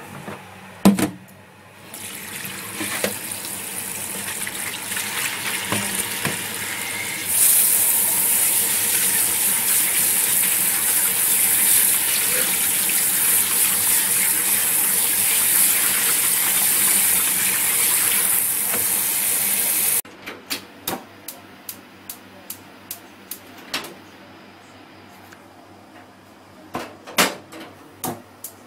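Kitchen tap running into a sink over a plastic colander of raw chicken wings as they are rinsed. The water gets louder about seven seconds in and is shut off suddenly about twenty seconds in. After that comes a string of short, sharp ticks.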